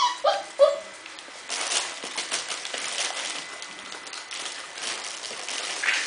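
A Cardigan Welsh Corgi puppy gives two short whimpers at the start. After that come irregular scuffling, clicking and scratching of puppies' paws and claws on the floor as they tussle.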